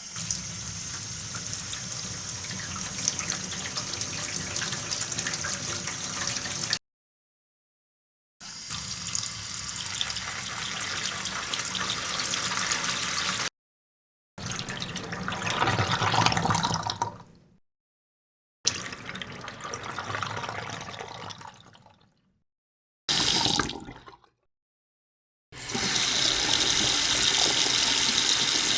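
Water running from a kitchen sink tap in six separate takes with silent gaps between them; the first two stop abruptly, and the later, shorter ones tail off.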